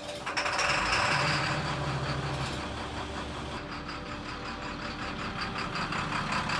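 School bus engine running as the bus pulls away, with a loud hiss that rises about half a second in and eases off over the next few seconds.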